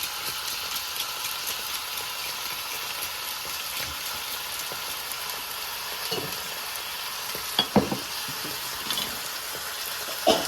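Green curry paste and whole spices sizzling steadily in hot oil in a pan. A few sharp knocks, most likely a utensil against the pan, come about six to eight seconds in.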